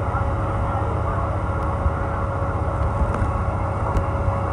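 Steady low diesel rumble of the stopped train idling close by, with a constant hum over it.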